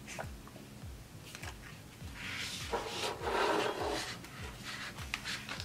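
Sheets of a sticker book being handled and shifted on a wooden desk: paper rustling and sliding, with a few light taps and a longer rustle in the middle.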